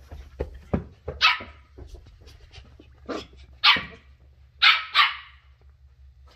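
A ten-week-old Shetland Sheepdog puppy barking in play: five short, sharp barks in irregular bursts, with a couple of thumps just before the first one.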